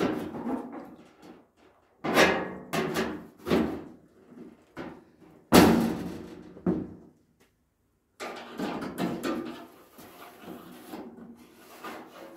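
A series of sharp metal knocks and clanks from hand tools working on a steel car body panel, the loudest about five and a half seconds in, followed by a few seconds of scraping and handling noise.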